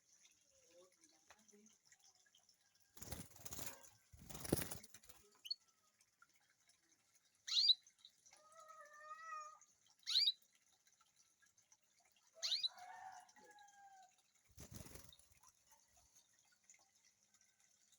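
Domestic canaries calling: three sharp chirps a few seconds apart, with softer, lower notes after the first and third, and a few brief bursts of wing flapping.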